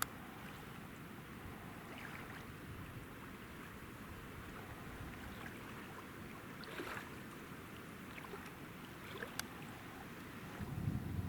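Steady outdoor background hiss at a fast-flowing river, with a few faint clicks and a louder low rumble near the end.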